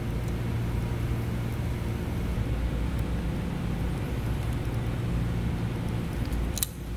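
Steady low machine hum, dropping out briefly near the end.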